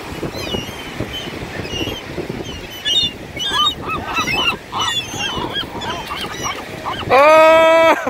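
A flock of gulls calling as they squabble over food: a busy run of short, clipped cries that grows denser partway through, then one loud, long, held call near the end.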